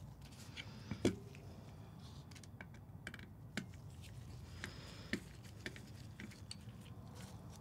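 Scattered light clicks and taps of a small precision screwdriver and tiny screws as a camera's metal lens mount is taken apart on a hard tabletop, the loudest click about a second in.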